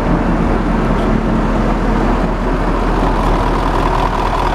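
Large diesel engine of a Niigata rotary snowplow running steadily at idle during an operation check, with a steady whine joining in over the last second.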